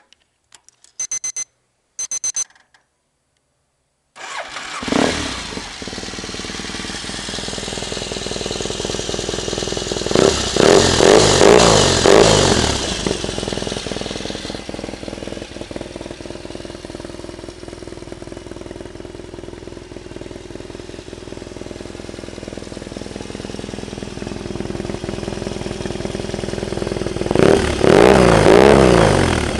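Two short high beeps, then the Yamaha XTZ750 Super Ténéré's parallel-twin engine starts, breathing through an Arrow aftermarket exhaust. It idles and is blipped several times about ten seconds in and again near the end.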